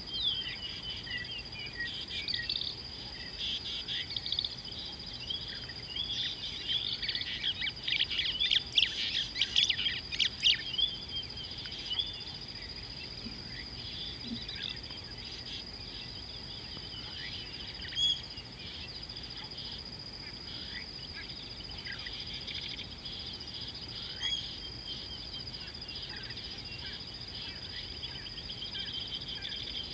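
Small birds chirping and calling over a steady, high-pitched insect drone, with a dense, louder flurry of chirps about a third of the way in and a couple of single calls later.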